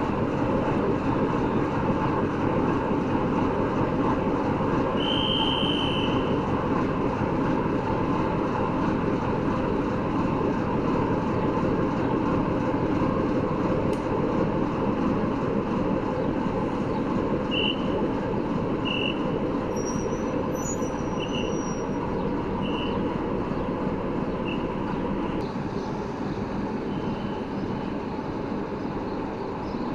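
Diesel-hydraulic shunting locomotive running steadily during shunting, a continuous heavy noise with a few brief high squeaks, one about five seconds in and several more in the second half.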